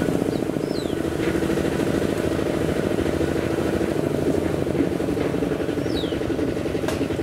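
Kubota single-cylinder diesel engine of a small farm tractor pulling a loaded trailer, running steadily with a rapid, even chugging beat.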